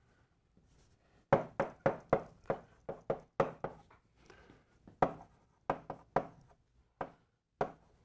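Chalk writing on a blackboard: a quick series of sharp taps and short scrapes, about three a second. The taps start a little over a second in, pause briefly near the middle, then carry on.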